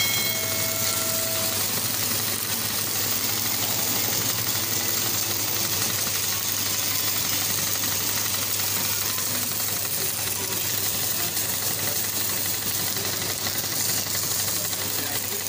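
Pressure washer running steadily, its motor humming under the hiss of the water jet blasting paint off a steel truck body.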